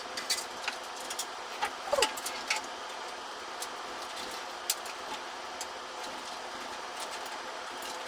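Scattered small clicks and taps of cables and plastic parts being handled inside a PC case, most of them in the first few seconds, over a steady background hiss.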